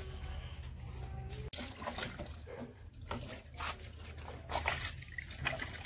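Water splashing and sloshing in irregular bursts as hands scrub in a plastic bucket of water, starting about a second and a half in after a steady low hum.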